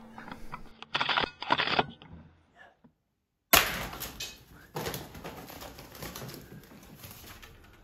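Feral pigeons' wings clattering in rapid flaps as the birds fly off, among short sharp knocks. The sound cuts out completely for about half a second near the middle, then a loud clatter starts suddenly and fades over about a second, with a second one a little later.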